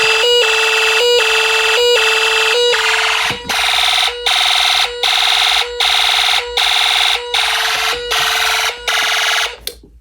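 Fire alarm horns sounding a pulsed, coded signal from the alarm panel: a buzzy tone repeating about one and a half blasts a second. The tone shifts slightly about three seconds in, and the signal cuts off shortly before the end.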